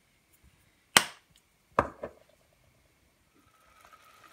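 Two sharp knocks of a hard object on a hard kitchen surface, a little under a second apart, the first ringing briefly. Near the end, the faint steady hiss of onions simmering in stock in a steel pot.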